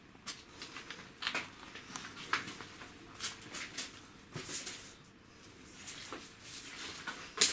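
Branches and sticks being handled and laid on a bonfire pile: irregular rustles and light snaps of dry wood, with one sharper crack near the end.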